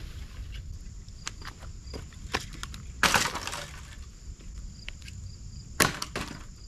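Dry sticks snapping: two loud cracks, about three seconds in with a brief splintering crackle, and again near the end, with lighter twig clicks in between.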